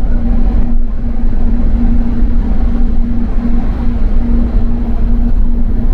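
Doha Metro train running, heard from inside the carriage: a loud, steady rumble with a pulsing hum.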